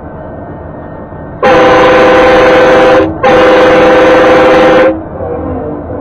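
Nathan K5LA five-chime train horn mounted on a motorhome, sounded as a very loud chord in two long blasts of about a second and a half each, with a brief break between them, over steady road noise. The first blast starts about a second and a half in.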